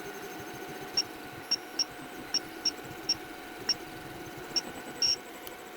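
3D printer printing: a steady motor hum, broken by about nine short, high-pitched chirps at uneven intervals as the print head moves.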